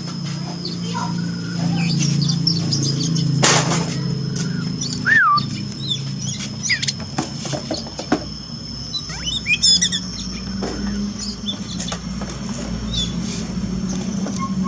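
Songbird chirping and calling: short sharp chirps and whistled notes scattered throughout, with one clear gliding whistle about five seconds in. Under it run a steady high thin tone and a low hum.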